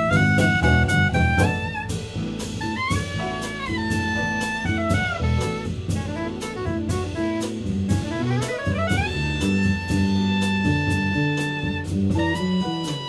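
Modern jazz septet playing live: a horn section of saxophones, trumpet and trombone holds long notes, sliding up together to a new chord about eight seconds in, over piano, bass and a drum kit keeping time on the cymbals.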